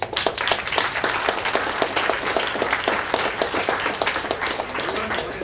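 An audience applauding: a burst of many hands clapping that breaks out suddenly and eases off slightly toward the end.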